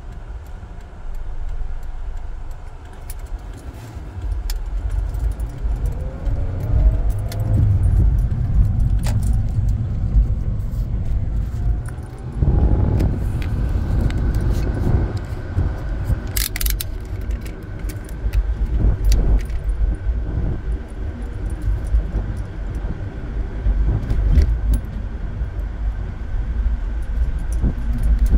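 Car cabin noise while driving: low engine and road rumble that grows a few seconds in as the car pulls away, with the engine note rising briefly as it gathers speed. Light rattling clicks and jingles sound on and off throughout.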